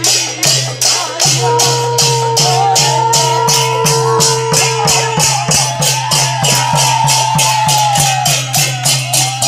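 Kirtan music: metal hand cymbals clash in a fast, steady beat of about four strokes a second over a mridanga drum. A long held high note runs over the beat from about a second and a half in until near the end.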